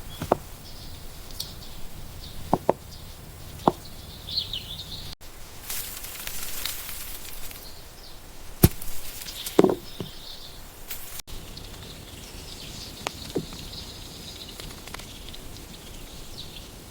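Birds chirping in the background, with a handful of short, sharp clicks and knocks scattered through; the loudest knock comes a little past halfway.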